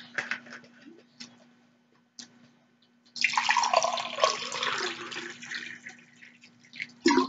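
Water poured from a bottle into a drinking glass: a steady splashing stream for about two seconds in the middle, thinning to a trickle. A sharp knock comes just before the end.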